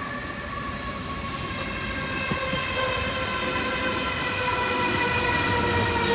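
A V set double-deck electric intercity train pulling into the platform and slowing, getting louder as it nears. It gives a steady whine that slowly falls in pitch, over the rumble of its wheels on the track.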